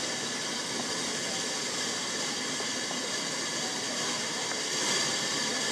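Peckett 0-4-0 saddle-tank steam locomotive running slowly with a short train of coaches, steam hissing steadily.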